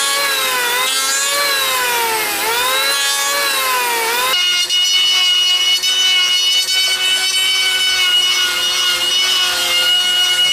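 Electric power tool cutting into wood, its motor whine dipping in pitch and recovering several times as it bites under load. From about four seconds in it settles into a steady high whine.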